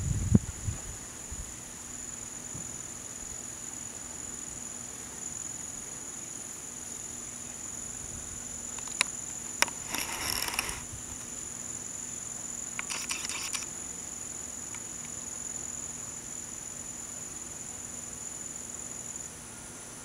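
Insect chorus in wet woodland: a steady high-pitched trill that stops abruptly near the end, with two short rasping bursts about halfway through. A low thump and a few clicks come right at the start.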